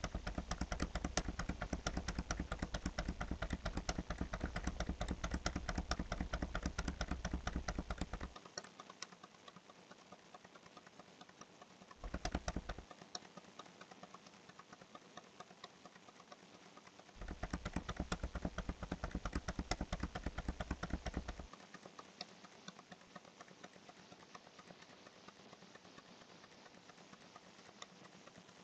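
A rapid, steady run of small clicks. They are louder, with a low hum beneath them, for the first eight seconds, briefly a little before the middle, and again for about four seconds past the middle.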